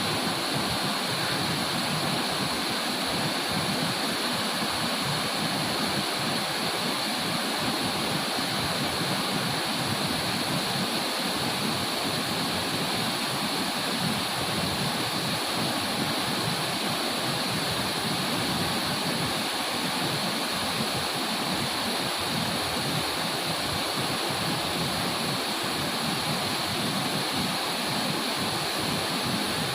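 Waterfall rushing: a steady, unbroken sound of falling water.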